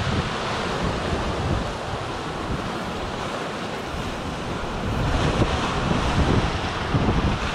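Ocean surf washing over and breaking against a rock shelf, with wind buffeting the microphone; the wash grows louder about five seconds in.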